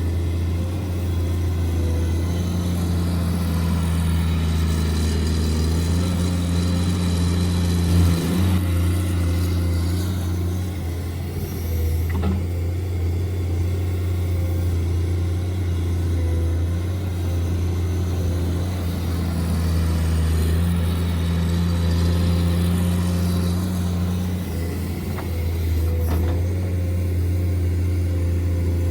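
Radio-controlled construction models running: a steady low engine-like hum, with a higher motor tone coming in twice for several seconds at a time and a couple of brief clicks.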